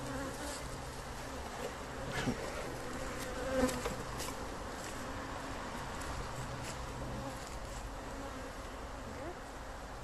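Honeybees buzzing around an open hive, a steady hum of many bees, with a couple of faint knocks.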